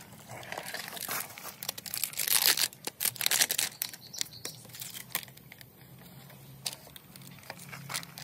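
Clear plastic packaging crinkling and rustling as roof-rack crossbar rails and fittings are unwrapped. It is loudest and densest in the first few seconds, then thins to scattered crinkles and light clicks.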